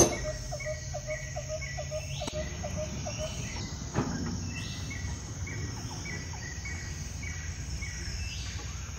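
Rhythmic chirping of wild animals. A low series of chirps at about two to three a second stops about three seconds in, while a higher run of short notes goes on about twice a second, with a single knock about four seconds in.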